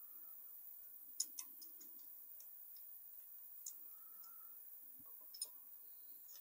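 Faint, irregular light metallic clicks of steel push rods and valvetrain parts being handled while fitting them into a Ford 302 V8, a few separate ticks with the clearest about a second in and near the end.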